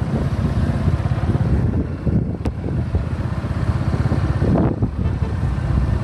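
Motorcycle engine running on the move, with wind rushing over the microphone.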